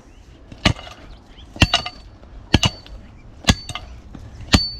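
Steel digging tool striking rock and packed dirt: five hard strikes about a second apart, some doubled, several leaving a brief high metallic ring.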